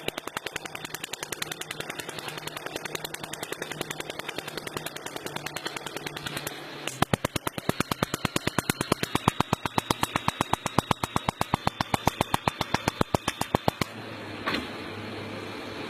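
Welding with a fast, even ticking pulse, about nine ticks a second at first, becoming louder and a little slower about seven seconds in. The ticking stops near the end, leaving a steady hum.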